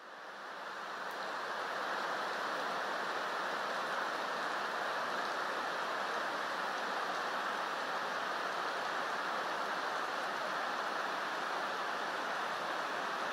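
Steady rushing noise of running water, fading in over the first two seconds and then holding level.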